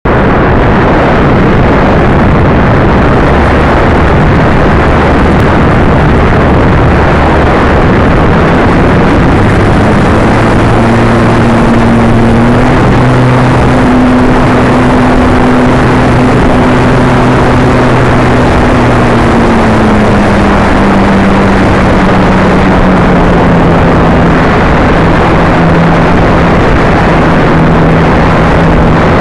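Model airplane's propeller and motor running in flight, heard through its onboard camera microphone as a loud, steady rush of wind and propeller noise. A low hum under the rush steps down in pitch about two-thirds of the way through and stays lower.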